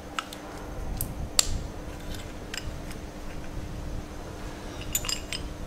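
A steel spanner levering between the old brake pads in a Kawasaki Versys 650 front brake caliper, pushing the caliper piston back into its bore. The metal on metal gives a handful of sharp clicks and scrapes. The loudest comes about a second and a half in, and a small cluster follows near the end.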